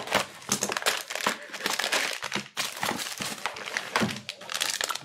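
Cellophane box wrap and a gold foil trading-card pack crinkling continuously as they are handled and opened.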